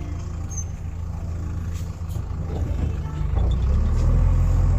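JCB backhoe loader's diesel engine running steadily, growing louder about three seconds in.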